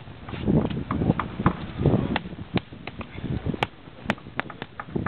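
Handwork on a reed boat: irregular sharp clicks and knocks mixed with dull, rustling thuds.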